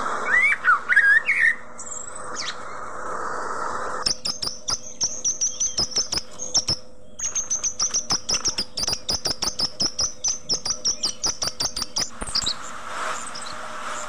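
Budgerigars calling: a few short warbling chirps that rise and fall, then from about four seconds in a long fast run of sharp, high chirps, several a second, with a brief pause near the middle.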